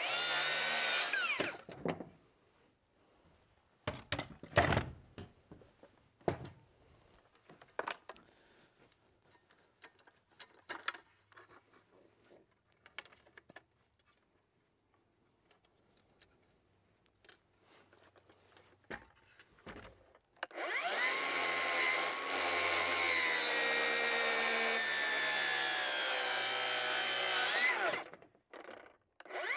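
Milwaukee M18 FUEL cordless rear-handle circular saw running and cutting through a board: a loud steady motor whine starting about two-thirds of the way in and lasting about seven seconds before cutting off. Before it, scattered clicks and knocks as the saw's bevel is set, and at the very start the tail of another saw's run dying away.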